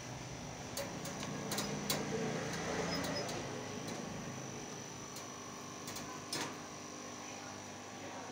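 Scattered light clicks and ticks over a steady background hum with a faint high whine.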